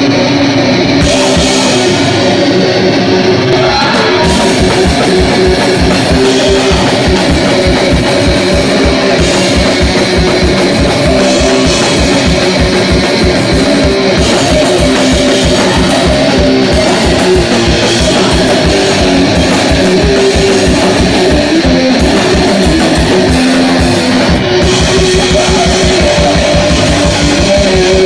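Rock band playing live: electric guitar over a drum kit, with a steady, fast kick-drum beat driving throughout. Loud, close recording from beside the drums.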